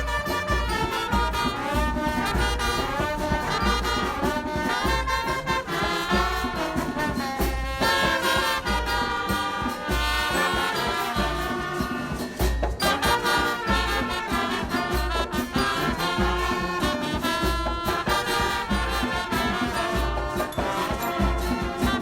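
Background music with brass instruments and a steady beat.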